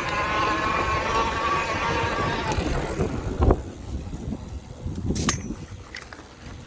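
Bafang M620 mid-drive e-bike motor running with a whine of several pitches stacked together. The whine is the noise the owner is documenting as abnormal. It stops about three seconds in, leaving low rumbling and two sharp knocks.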